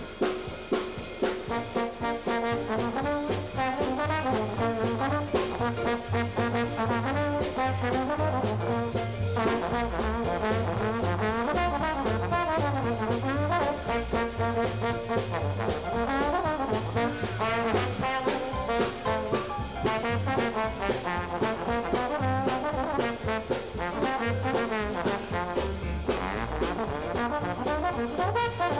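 Slide trombone playing a fast hot-jazz solo full of runs and slides over a jazz band's rhythm section.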